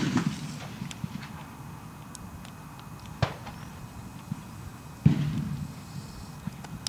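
A few dull thumps and knocks: one at the start, a light click about three seconds in, and the loudest about five seconds in, each trailing off in a short low rumble.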